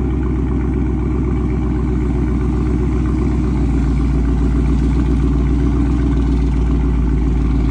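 Dodge Charger 392's 6.4-litre HEMI V8 running steadily through its stock exhaust. It has a deep, even note, with most of the sound in the low end.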